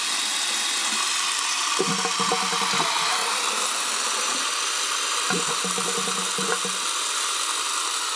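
Tap water running steadily from a bathroom faucet into the sink and over a newly fitted pop-up drain and stopper, which is being tested. Two brief low tones sound through the water noise, about two seconds in and again about five seconds in.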